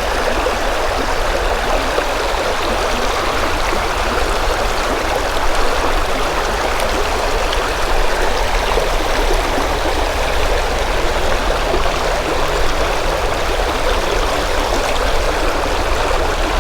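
Creek water running in a steady rush.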